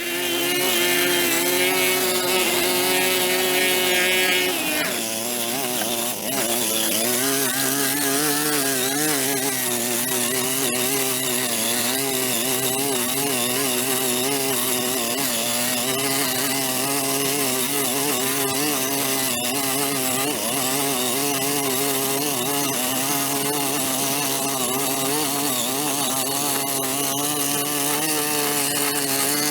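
Small engine of a handheld power tool running. It holds a high pitch for the first few seconds, then drops and wavers up and down as it works.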